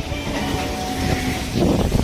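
Sanyo Electric Railway train pulling into the station platform: wheels rolling on the rails under a steady whine, with a louder rumble near the end.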